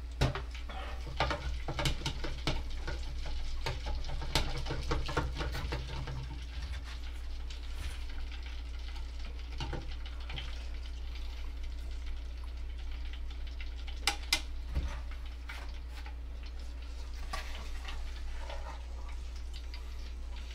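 Yonggari chicken nuggets being re-fried in oil in a pan: a crackling sizzle with clicks and taps as they are stirred and turned, busier in the first few seconds, with two sharper clicks about fourteen seconds in.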